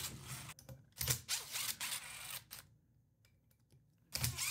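Cordless drill running in short bursts, backing out the screws that hold the bottom onto a Hitachi NV45AB2 coil roofing nailer's housing, with clicks of handling between. There is a pause of about a second and a half before a last short burst near the end.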